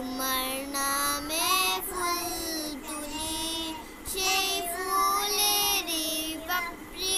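A young girl singing a Bengali naat solo with no accompaniment, holding long notes that glide between pitches, with short breath pauses between phrases.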